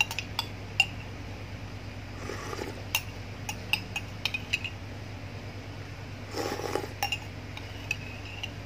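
A metal spoon clinking and scraping against a drinking glass: a dozen or so sharp, irregular clinks, each with a brief ring.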